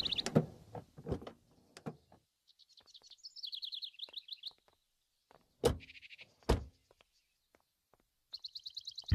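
Small birds chirping in quick trills, heard twice, with two heavy thunks of a jeep door a little under a second apart about midway through. There are a few light clicks and knocks in the first two seconds.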